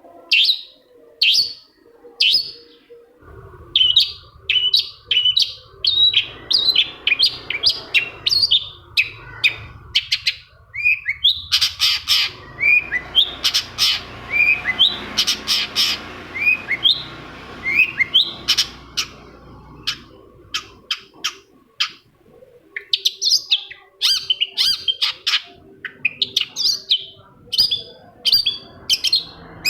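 Long-tailed shrike (cendet) singing: a rapid, busy series of short, sharp chirps and harsh notes, with a run of falling notes in the middle.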